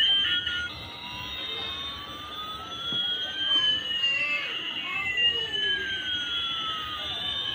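Electronic sound effect: two steady tones glide slowly, one rising and one falling, crossing each other about halfway through, after a few stepped electronic beeps right at the start.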